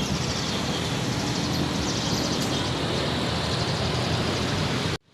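Street traffic noise: a steady rumble and hiss of passing vehicles that cuts off abruptly near the end.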